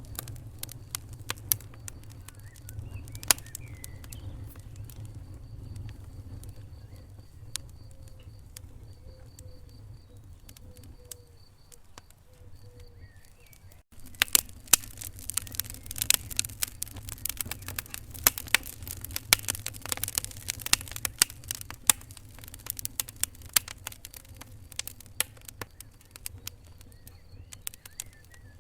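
Wood fire crackling in a fireplace: scattered sharp pops and snaps over a steady low rumble of the flames. The pops come thicker and louder after a short break about halfway through.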